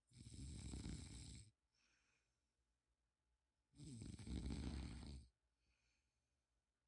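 Two rattling snores about three and a half seconds apart, each lasting a second and a half, each followed by a softer, higher whistling breath.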